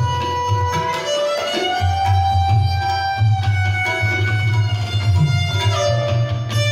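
Sarinda, the bowed Pashtun folk fiddle, playing an instrumental naghma melody in held notes with slides between them, accompanied by tabla keeping a steady rhythm.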